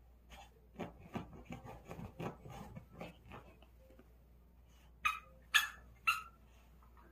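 Small toy poodle pawing and nosing at a quilted blanket with soft scratching and rustling. Then come three short, high yips about five, five and a half and six seconds in.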